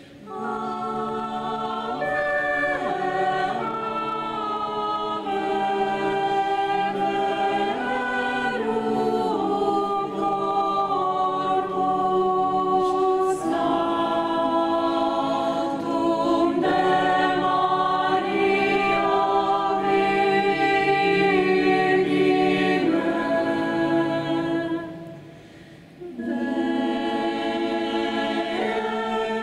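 Small mixed choir of men and women singing a cappella in several parts, holding sustained chords under a conductor. The singing breaks off briefly about 25 seconds in, then starts again.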